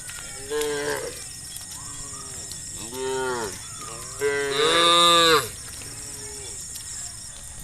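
A herd of cattle mooing: several separate moos, each rising and then falling in pitch, with the loudest and longest call about four to five seconds in and fainter moos from other cows between.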